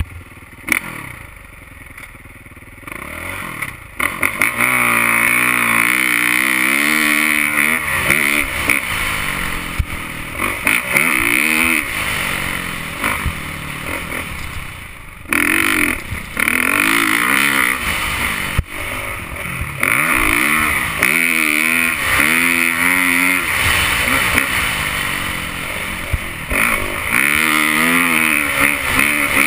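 Motocross dirt bike engine during a track lap: a quieter stretch for the first few seconds as it rolls down a jump, then revving hard, rising and falling through the gears. The throttle is chopped briefly about halfway through and again a few seconds later.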